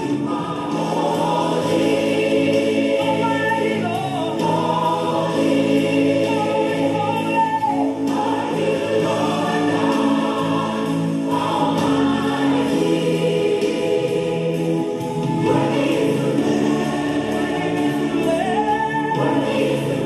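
Gospel worship song: a choir singing over held chords that change every few seconds.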